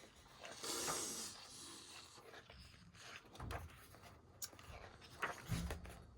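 Paper pages of a photobook being handled and turned: a soft rustle about a second in, then light rubbing and small taps.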